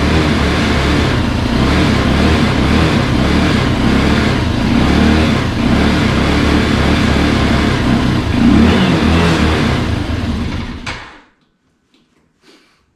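Kayo Bull 150 ATV engine running, its note rising and falling with the throttle, then stopping about eleven seconds in.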